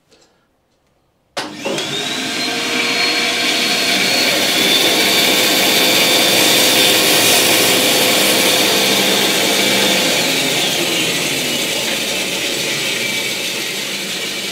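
Sherwood bandsaw switched on about a second and a half in, its whine rising as it comes up to speed, then running steadily as a pen blank is cut to length in a small jig.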